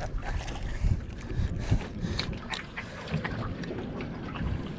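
Wind buffeting the microphone and water moving around a small fishing boat's hull, with scattered light clicks and knocks.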